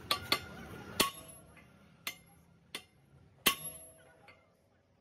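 Sledgehammer blows on a steel drift held in locking pliers against an excavator track link pin, driving the pin out to separate the track. Six sharp metal strikes, each with a short ring and at uneven intervals. The loudest come about a second in and at three and a half seconds, and the strikes stop a little after four seconds.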